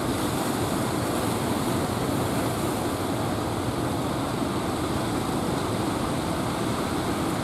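Steady rush of ocean surf breaking on the beach, an even noise with no distinct crashes.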